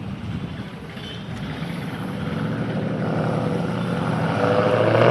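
Car engine running and growing steadily louder as the car draws nearer, with a low, even hum under rising road noise.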